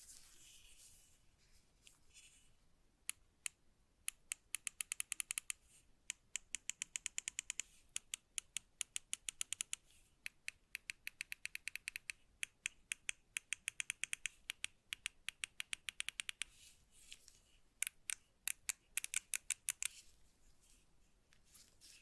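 Small plastic clicks of a Razer Naga Pro gaming mouse's buttons being pressed over and over in quick runs, about five clicks a second. Each run lasts several seconds, with short pauses between runs.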